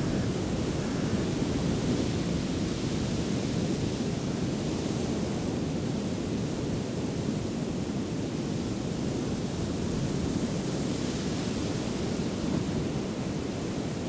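Ocean surf breaking on a beach: a steady, even rush of waves with no distinct separate crashes.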